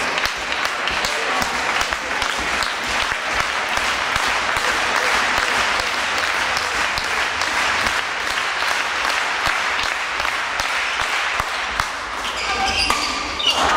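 Spectators in a sports hall applauding, a steady mass of clapping between rallies of a badminton match. The clapping eases about 12 seconds in, and a voice calls out near the end.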